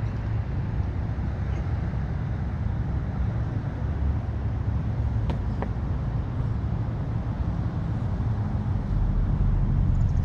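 Loram rail grinder train running, a steady low rumble.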